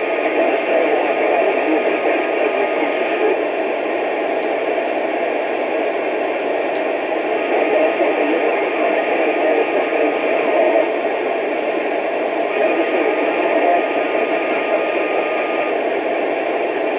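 Radio receiver's speaker hissing steadily with open-channel static, sounding narrow and tinny, with a faint steady whistle underneath at times. Two faint clicks come about 4.5 and 7 seconds in.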